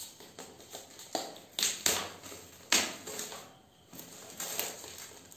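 Clear plastic shrink wrap being torn and peeled off a small cardboard product box: a run of sharp crinkling crackles, thickest in the middle, with one more near the end.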